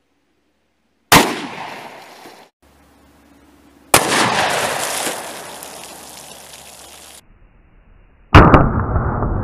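A single 10mm pistol shot, a Glock 20 firing a 220 grain hard-cast round, about a second in, with a short echo tail. Two more sharp booming blasts follow with long decaying tails, the last near the end running on as a steady rush.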